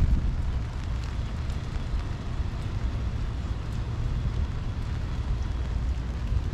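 Steady rain falling, with a heavy low rumble underneath.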